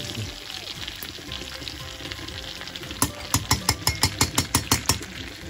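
Steady sizzling of meat patties frying in fat. About three seconds in comes a quick run of around a dozen sharp knocks, a utensil striking the stainless steel pot while the potatoes are stirred and mashed.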